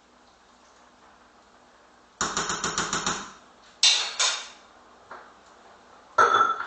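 Cookware handled at the stove: a rapid rattle of about a second, then two sharp knocks close together, and another clatter near the end.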